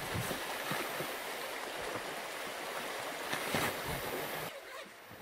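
Steady rushing of a stream, with a few brief rustles and knocks from the rooftop tent's fabric rain fly being pulled back. The rushing drops away near the end.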